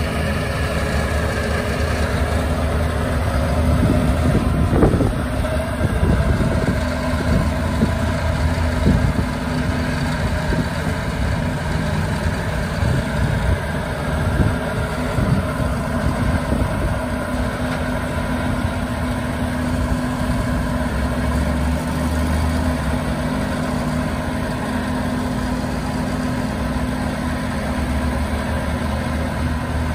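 Ford bucket truck engine running steadily to drive the Telsta SU36 aerial lift's hydraulics while the boom raises and extends the bucket. Several short knocks and clunks come in the first half.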